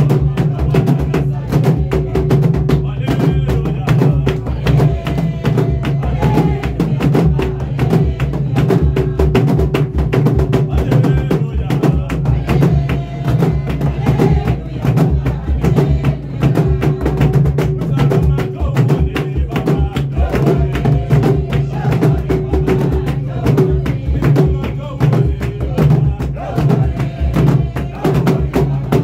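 Several large drums beaten together in a fast, dense, steady beat, with voices singing or chanting over them.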